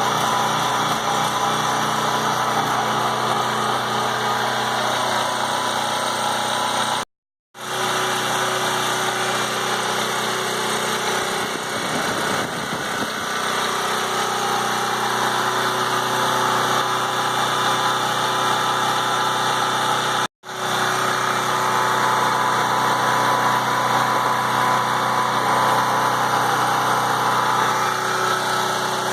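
PowerIt 3800-watt portable generator's 7-horsepower four-stroke gasoline engine running steadily under no load. It is running on year-old gas after sitting all winter, and started up pretty good.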